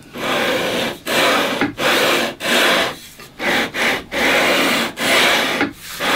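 A long metal sanding beam faced with 250-grit stick-on sandpaper stroked back and forth over the frets of an electric guitar neck. There are about ten sanding strokes, each about half a second long with short pauses between. This is fret levelling: the high frets are being ground down flat.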